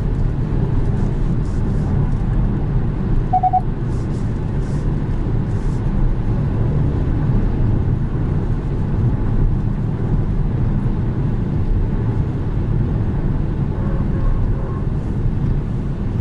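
Steady low rumble of road, tyre and engine noise inside the cabin of a 2020 Kia Soul Booster driving on an expressway. A short beep sounds about three and a half seconds in.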